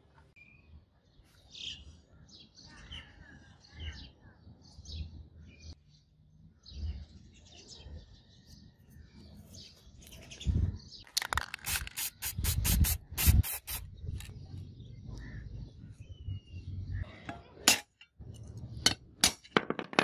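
Birds chirping in the background. About eleven seconds in comes a quick run of about a dozen sharp taps on metal, then a few single taps near the end.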